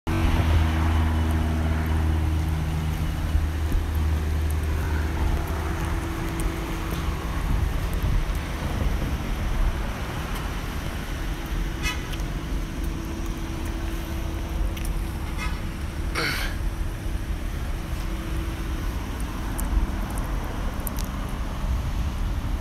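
A vehicle engine running steadily at idle under a low rumble of wind on the microphone, with a few short high chirps around the middle.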